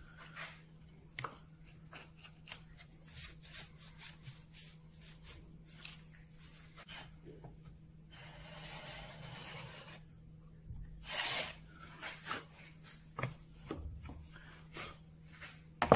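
Hand chisel paring and scraping wood along a marked line: a series of short scraping strokes, with a longer scrape about eight seconds in and a louder stroke about eleven seconds in.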